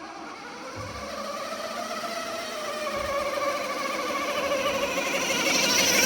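Electric drive motor and 3D-printed gearbox of a 1:10 scale RC model truck whining as it drives, growing steadily louder. The builder says the motor was overtaxed by the model.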